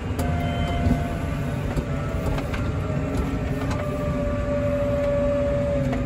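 Tractor running steadily, heard from inside the cab, with a steady whine that slowly drops a little in pitch and a few light knocks.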